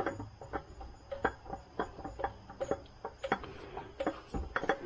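Light, irregular clicks and rubbing, about three a second, from a gloved hand threading a new oil filter onto the engine and turning it snug.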